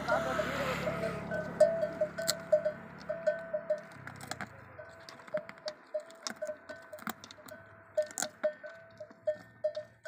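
A small animal bell clinking over and over, a few strokes a second, with sharp cracks now and then as camels crunch on bones.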